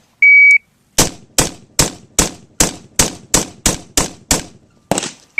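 Shot timer's steady start beep, then an AR-15 carbine firing a rapid string of about ten shots, roughly two and a half a second, for one timed stage of a rifle drill.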